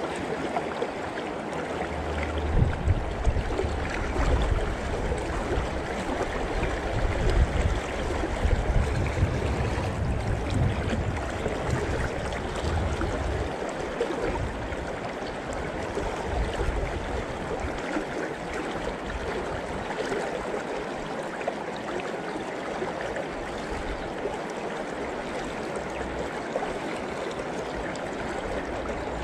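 River current rushing steadily past, an even noise of flowing water. An irregular low rumble sits under it from about two seconds in until about thirteen seconds in, loudest in the first half.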